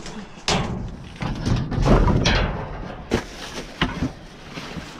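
Thumps and knocks from trash being shifted with a reacher-grabber tool inside a metal dumpster. A sharp knock comes about half a second in, the heaviest low thudding about two seconds in, and short sharp knocks just after three and near four seconds.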